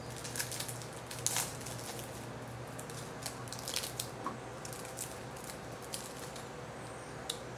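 Scattered short crinkles and rustles as a foil trading-card pack is torn open and the cards are slid out and handled, over a low steady hum.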